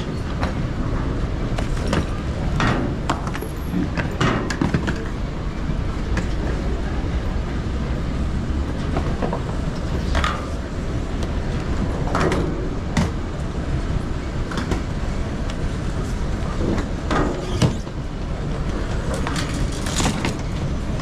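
Airport baggage carousel running with a steady low rumble, with scattered knocks and thuds of suitcases being dropped onto and pulled off the belt.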